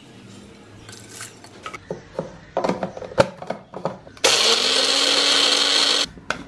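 Dry-roasted whole spices clatter into a small blender cup as they are scraped in. About four seconds in, the blender's motor starts with a rising whine and grinds the spices dry for about two seconds, then stops abruptly.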